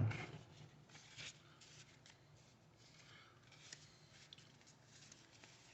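Faint rustling and scattered light taps of baseball cards being handled and stacked.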